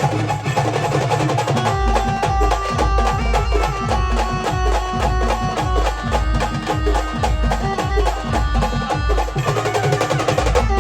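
Live band music playing a Kanbai song, without vocals: fast, dense percussion under a steady melody line, with a deep pulsing bass beat coming in about two seconds in.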